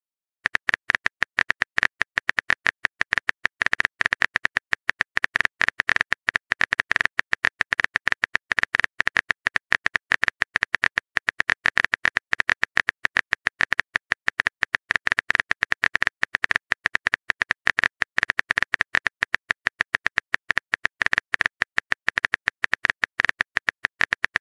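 Simulated phone-keyboard typing clicks from a texting-story app, a rapid, uneven run of identical short ticks as a message is typed out letter by letter. They start about half a second in.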